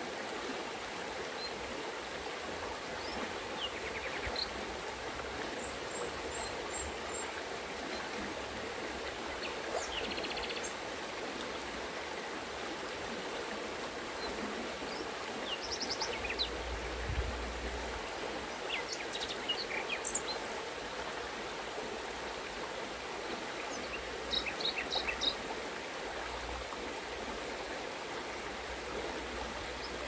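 Shallow mountain river running steadily over a stony bed, a continuous rush of water. Small birds chirp now and then above it, with a quick run of chirps late on.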